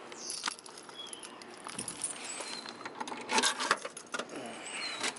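Light jingling and clicking with rustling, busiest in a cluster about three and a half seconds in.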